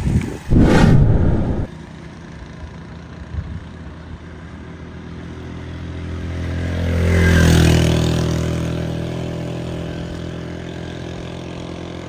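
A motor vehicle passes close by: its engine note builds up, peaks and fades away, the pitch dropping slightly as it goes past. A brief loud whoosh comes about half a second in.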